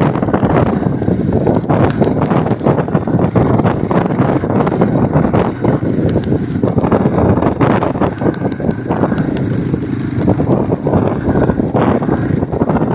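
Small motorcycle running along a dirt road, heard from the rider's seat, with wind buffeting the microphone and frequent knocks and rattles from the rough surface.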